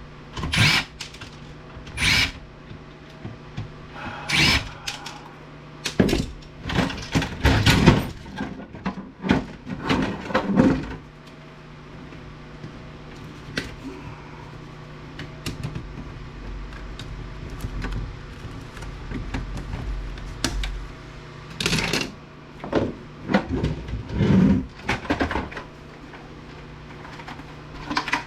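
Irregular knocks, clicks and clatter of an APC battery backup unit being taken apart by hand: panels and parts pried off to reach the screws. The clatter comes in busy runs at the start and again past the middle, over a steady low hum.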